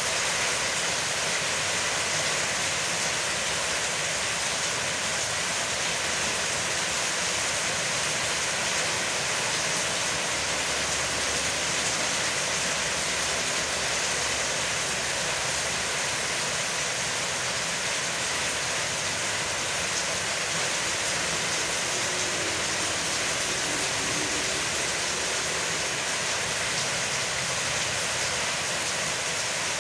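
Heavy rain falling steadily: a constant, even hiss.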